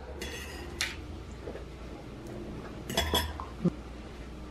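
Dishes and cutlery clinking: a few sharp clinks near the start and again about three seconds in, then a duller knock.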